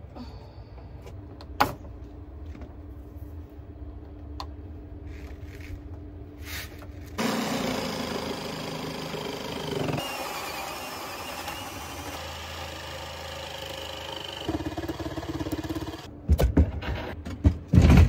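Cordless drill with a spade bit boring through a wooden countertop, starting about seven seconds in, its motor pitch dipping and recovering as the bit cuts. Before it there is a low steady hum with a few sharp clicks, and near the end come several loud knocks.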